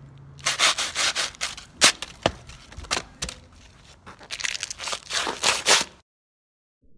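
Crumpled paper ball being crushed underfoot by a boot on asphalt, crinkling and crunching in a dense run of sharp crackles that stops abruptly about six seconds in.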